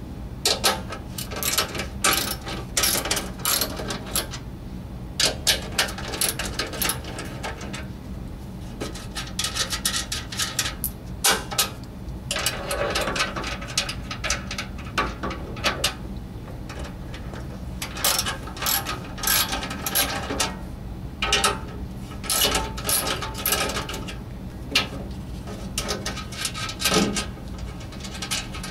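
Ratchet socket wrench clicking in repeated bursts as the bolts holding a snow blower's scraper blade to the auger housing are backed out.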